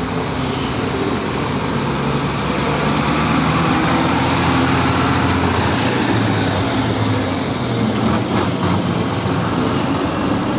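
Diesel engine of a concrete mixer truck running steadily as the truck drives past on a street, with other road traffic.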